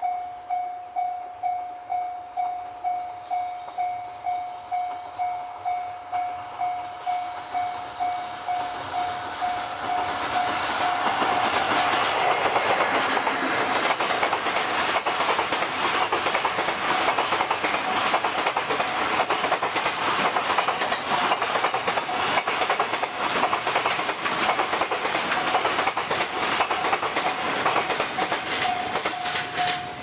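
A level-crossing warning bell rings steadily at about two strikes a second. From about ten seconds in, a long container freight train hauled by an EF65 electric locomotive passes close by, its wagon wheels clattering over the rail joints and drowning out the bell. Near the end the train has gone and the bell is heard again.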